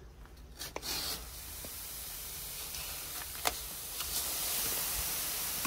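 Filter sand pouring from a 20 kg sack into the empty tank of a 24-inch Lacron sand filter: a steady hiss that starts about a second in. A few light clicks come from handling the sack.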